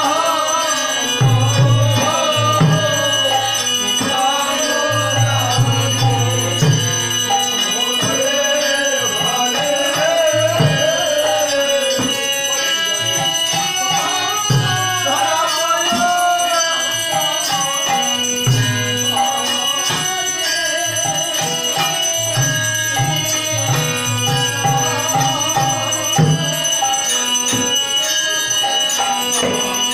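Devotional kirtan: voices singing a wavering melody over a hand drum beating in clusters of low strokes, with other percussion.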